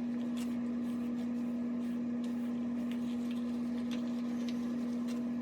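A steady low hum at one pitch, with a few faint short scratchy strokes of a detangling brush being pulled through the wet, conditioned wig hair.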